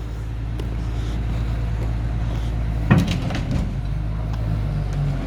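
Truck engine running steadily, with one sharp metallic clunk and a short rattle about three seconds in.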